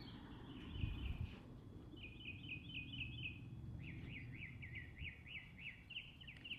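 A small songbird singing rapid runs of short repeated notes: first a quick chattering series, then a run of rising upslurred whistles at about four a second. Low outdoor rumble runs underneath, with a brief louder rumble about a second in.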